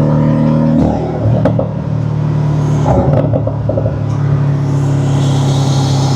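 Turbocharged flat-four engine of a Porsche 718 Cayman running under way, heard through an aftermarket turbo inlet pipe: a steady drone mixed with intake and mechanical noise. The drone breaks up briefly about a second in and again about three seconds in, and a high whistle comes in near the end.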